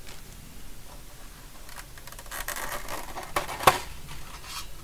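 Small metal toggle switches being handled: a cluster of light clicks and rattles from about two seconds in, with one sharp, louder click about three and a half seconds in.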